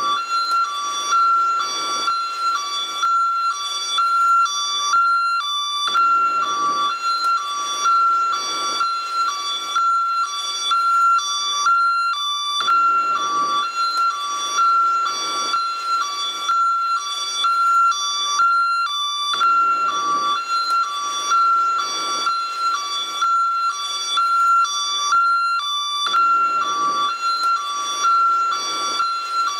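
Two-tone hi-lo ambulance siren, alternating evenly between a high and a low tone, with a low rush of background noise swelling and fading about every six seconds.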